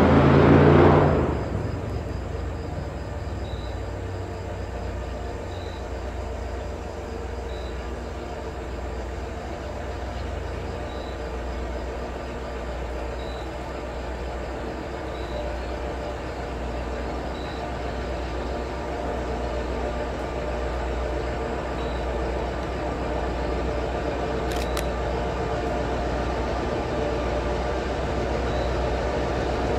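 EMD GP10 diesel locomotive running steadily at low speed as it approaches, its low engine drone slowly growing louder. A louder sound with steady tones cuts off about a second in.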